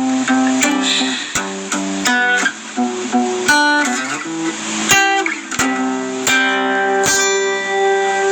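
Acoustic guitar played in chords, strummed and plucked, with sharp strokes and notes ringing on between them. A long chord rings out from about six seconds in.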